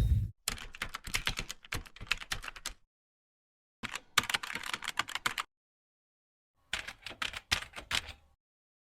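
Typing on a computer keyboard in three bursts of rapid keystrokes, each one and a half to two and a half seconds long, with pauses of about a second between them.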